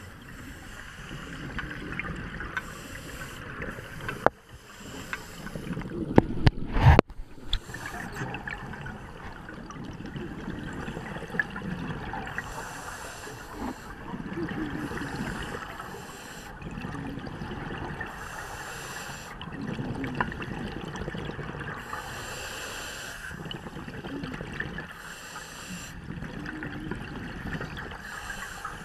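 Scuba diver's regulator breathing heard underwater: a short hiss on each inhale every few seconds and gurgling exhaled bubbles in between. A few sharp, loud knocks come about six to seven seconds in.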